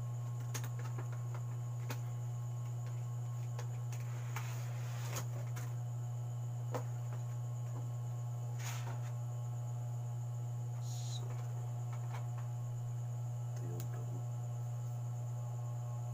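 Steady low electrical hum, with scattered faint clicks and brief rustles of parts and packaging being handled.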